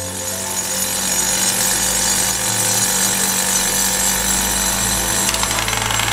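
Powered demolition hammering into the reinforced-concrete base of a chimney being readied for blasting: a continuous rattling din from a hand-held hammer drill and an excavator's hydraulic breaker over a steady engine hum. Soft piano music fades out as the hammering comes in.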